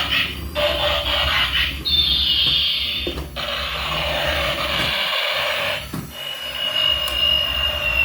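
Continuous scraping and rubbing noise. A thin, high squeal cuts in about two seconds in, falls slightly in pitch and stops after about a second; a second, quieter one starts about six seconds in and slowly falls.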